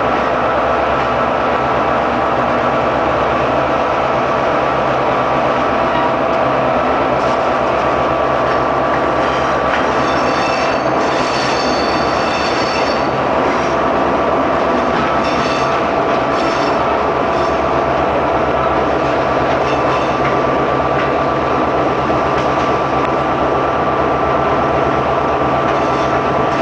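Diesel locomotive running close up as the train moves, a steady engine drone with a constant whine over it and the wheels rolling on the rails. Bursts of high-pitched wheel squeal come in about ten seconds in, a few more times after that and again near the end.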